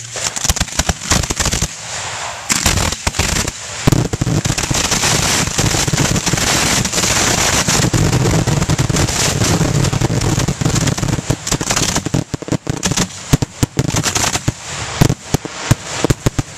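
Fireworks finale fired at close range: a rapid barrage of launches and bursts with dense crackle, merging into a near-continuous roar in the middle and thinning to separate sharp bangs near the end.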